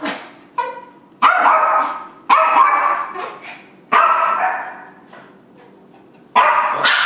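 A small dog barking: a weaker yip about half a second in, then four loud, sharp barks spaced irregularly a second or more apart. Each bark rings on briefly off the tile floor and bare walls. It is a reactive dog barking at a visitor.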